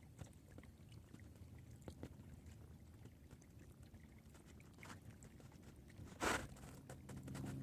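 Faint outdoor background noise: a low rumble with scattered light clicks and a brief louder rush about six seconds in, then a low steady hum coming in near the end.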